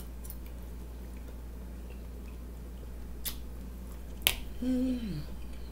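Two sharp clicks about a second apart, a metal fork tapping against a plate while eating, then a short closed-mouth 'mmm' that falls in pitch at its end. A steady low electrical hum runs underneath.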